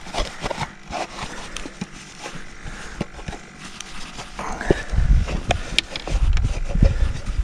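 A cloth towel rubbing and wiping a clear plastic fish measuring board, with scattered clicks and knocks as the plastic is handled. Low thumps and rumbles come in during the second half.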